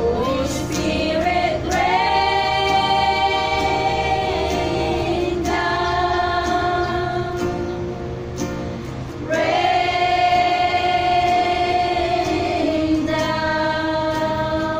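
A small group of women singing a slow worship song together, to acoustic guitar, in long held notes that come in phrases of a few seconds each.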